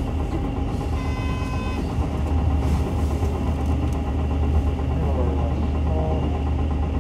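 Cabin sound of a Nissan Diesel Space Runner RA city bus (PKG-RA274KAN) under way, its diesel engine running with a steady deep hum. A brief electronic beep sounds about a second in.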